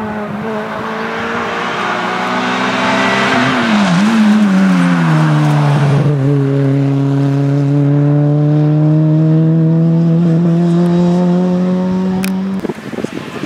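Honda Civic hatchback's engine running hard through an auto-slalom course, held at steady high revs, then dipping and dropping in pitch about four seconds in as the car slows for a turn. It pulls on with a slowly rising pitch until the sound cuts off suddenly near the end.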